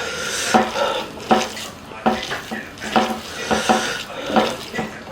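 Close-miked eating of rice with chicken curry (masu bhat): wet chewing and mouth sounds, with a sharp smack about every 0.8 seconds.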